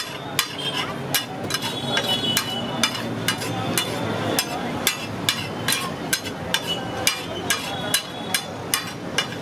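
Metal spatula clacking and scraping on a flat iron griddle as it chops and mashes pea masala, in a steady run of sharp strikes about two or three a second.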